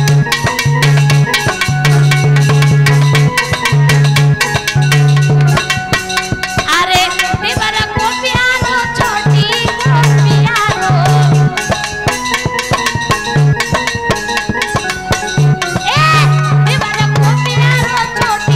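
Live Indian folk song, a jachcha geet (birth-celebration song): a woman singing over an electronic keyboard with a fast, steady drum beat and a repeating low bass note.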